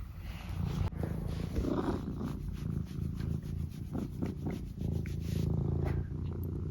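Tabby cat purring steadily throughout.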